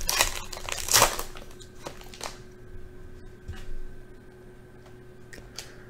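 Trading-card pack wrapper being torn open by hand: crinkling with a sharp rip about a second in, then a few soft clicks and taps as the cards are pulled out and set down.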